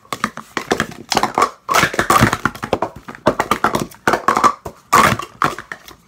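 Plastic Speed Stacks sport-stacking cups being stacked up and collapsed at speed by hand on a stack mat. The result is a fast, uneven run of hollow plastic clacks and knocks.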